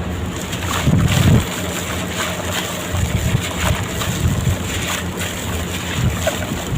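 Red sand-cement blocks crumbling in water: a steady wet sloshing with many small crunches and crackles, and a louder low thump about a second in.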